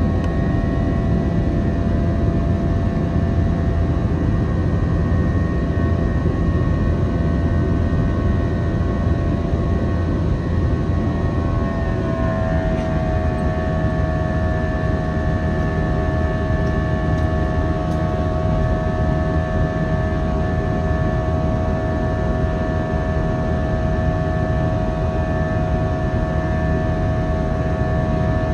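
Jet airliner cabin noise in flight: a steady low rush of engine and air noise with several steady engine tones. About twelve seconds in, the engine tones shift in pitch.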